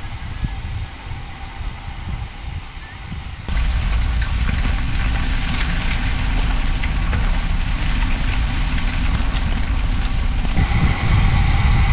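Wind rushing over the microphone of a camera riding along on a road bike. The rush gets suddenly louder about three and a half seconds in.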